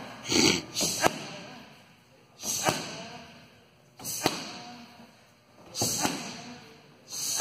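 Punches and a kick smacking into Muay Thai focus mitts and Thai pads: four sharp slaps about a second and a half apart, each led by the striker's short hissing exhale.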